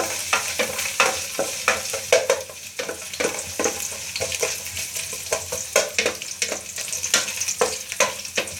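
Chopped garlic sizzling and frying in hot oil in a pan, with frequent short clicks and scrapes of a utensil stirring it against the pan.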